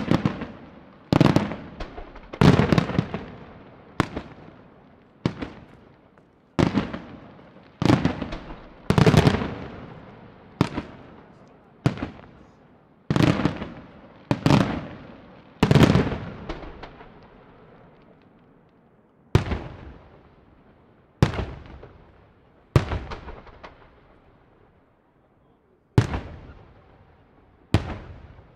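Aerial firework shells bursting one after another, a sharp bang every second or so, each trailing off in a long rumbling echo. The pace slackens twice, leaving gaps of two or three seconds between bursts.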